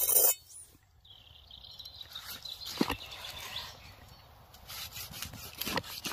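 Broad-bladed knife slicing through a seared steak on a wooden cutting board: a soft rubbing of the cut, with a sharp knock twice as the blade meets the wood. A brief loud scrape at the very start and a faint high steady whistle about a second in.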